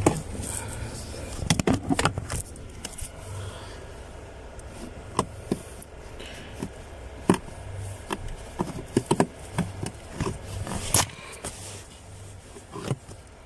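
Scattered plastic clicks, knocks and scrapes as a car's cabin air filter is worked out of its housing under the dashboard by hand, the loudest click near the end.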